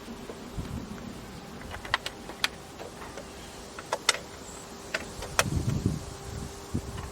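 Hand-work noises: a scattering of sharp metallic clicks and clinks, with a few dull knocks about two-thirds of the way through, over a faint steady hum.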